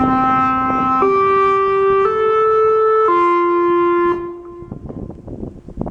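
Campus emergency alert system's attention tone: four held, reedy electronic notes of about a second each, stepping up twice and then down, the last note fading out a little after four seconds in. Faint scattered clicks follow.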